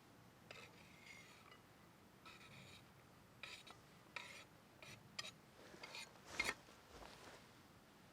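Quiet, irregular scraping and rubbing strokes, about six short ones, with a sharp click or knock about six and a half seconds in.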